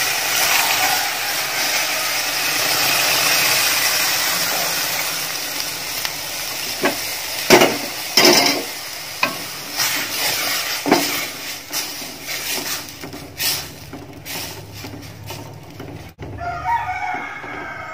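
Milk poured into a hot stainless-steel pan of ghee-roasted oats, hissing and sizzling at first and dying away over several seconds. Then a spatula stirs the milk and oats, knocking and scraping against the pan. A rooster crows near the end.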